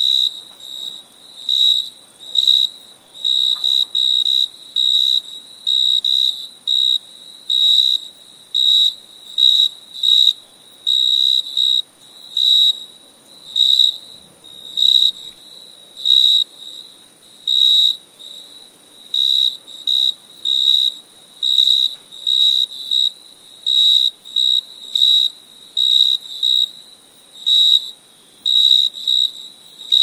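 Cricket chirping: short, high-pitched chirps repeated about one to two times a second in a slightly irregular rhythm, over a faint steady high hiss.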